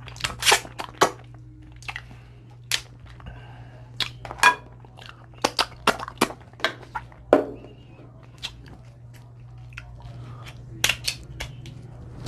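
Dungeness crab shell being cracked and picked apart by hand close to the microphone, with irregular sharp cracks and snaps, together with chewing.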